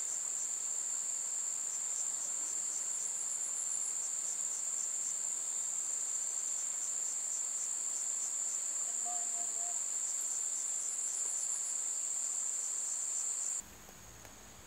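Insects keep up a steady, high-pitched trilling drone that cuts off abruptly near the end.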